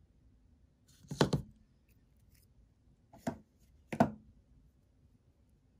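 Sharp little clicks and taps from small metal fishing tackle, a rigging needle and swivel, being handled against a tabletop: a quick cluster of taps about a second in, then two single clicks near the end.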